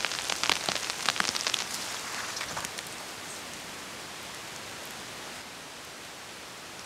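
Rain falling in a forest, with close, loud drops ticking irregularly for the first two and a half seconds or so, then settling to a soft, steady hiss.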